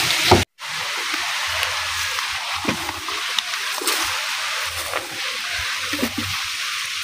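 Steady outdoor hiss with a few faint scattered knocks and rustles, broken by a brief dropout about half a second in.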